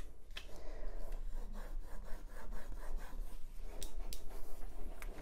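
Rub-on transfer being burnished onto a wooden cutting board: repeated scratchy rubbing strokes over the plastic transfer sheet, with a few sharp ticks.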